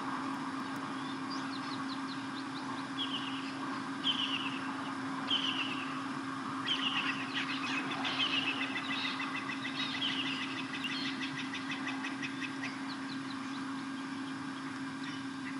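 Blacksmith lapwings calling: sharp, metallic alarm calls, single ones about a second apart at first, then a fast overlapping run of many calls for several seconds before they thin out. A steady low electrical hum lies underneath.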